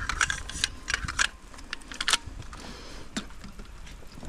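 Pneumatic stapler being reloaded: a quick run of sharp plastic-and-metal clicks and rattles as a strip of staples goes into the magazine and the pusher snaps shut, with a few lighter clicks after.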